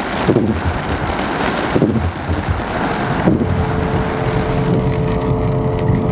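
Hail and rain pelting a car's roof and windshield, heard from inside the cabin, with a sweeping sound repeating about every second and a half. Near the end it cuts to the steady hum of the car driving on the highway.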